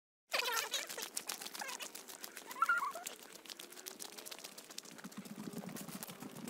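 Footsteps clicking and knocking on a wooden footbridge while walking through woods, with birds chirping a few times.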